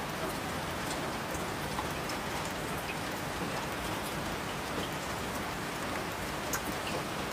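Steady rain falling, with scattered individual drops ticking on a surface.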